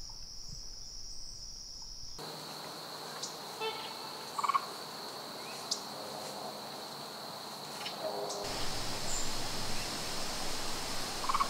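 Insects trilling steadily in one high, even tone, with a few faint short chirps over it.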